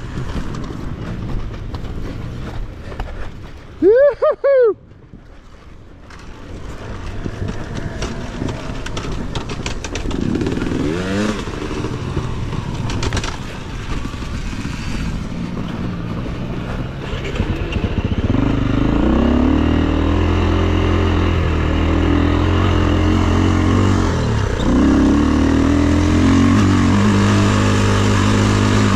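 KTM EXC enduro dirt bike engine running as it is ridden along a rough trail, its revs rising and falling with the throttle. About four seconds in there is a short, very loud burst that rises and falls in pitch, and from about eighteen seconds on the engine runs louder and steadier.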